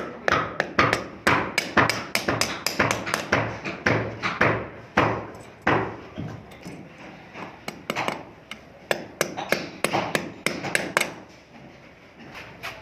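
Repeated sharp hammer strikes, two or three a second and irregular, thinning out and growing quieter near the end.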